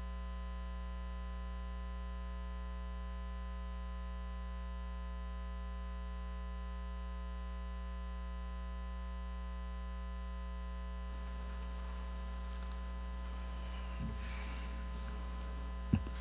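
Steady electrical mains hum on the sound system's audio feed, with faint handling noise and a sharp thump near the end.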